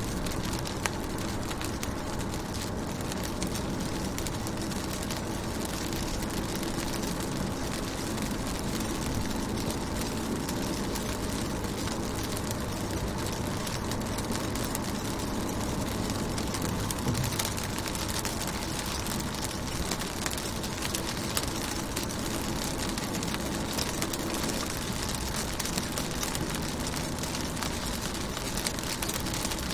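Rain falling on a car window, heard from inside the car: a steady hiss dotted with many small drop ticks over a constant low rumble.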